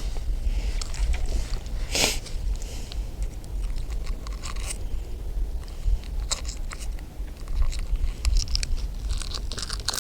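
Wind rumbling on the microphone, with scattered crackles and clicks of fishing gear being handled and a louder scrape about two seconds in.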